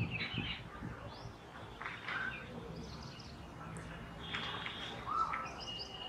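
Jungle babblers calling: a string of short calls at irregular intervals, the loudest about four seconds in. A thin steady high tone comes in near the end.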